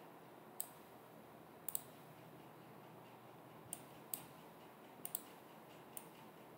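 Computer mouse buttons clicking, faint and sharp: a handful of single clicks and two quick double clicks spread over several seconds while selecting and cutting.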